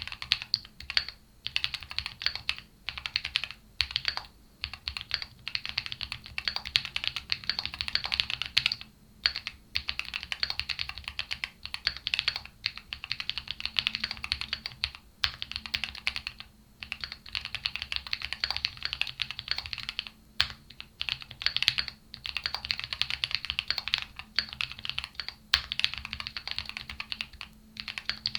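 Qwertykeys QK75 mechanical keyboard being typed on quickly, with KNC Red Jacket switches and Cherry-profile PBT keycaps on a PC plate in a foam-filled aluminium gasket-mount case, giving a punchy sound. The keystrokes come in fast runs broken by brief pauses.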